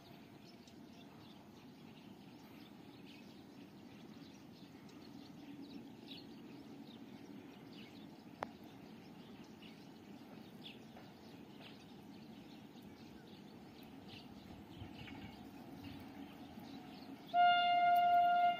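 Faint open-air ambience with a low rumble and scattered bird chirps, and one sharp click about halfway through. Near the end a train horn starts sounding a steady high note, much louder than the ambience.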